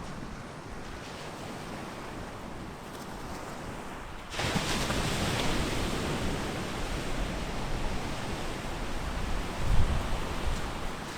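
Surf breaking on a sand beach, mixed with wind on the microphone. The sea noise gets suddenly louder and fuller about four seconds in, and a gust buffets the microphone near the end.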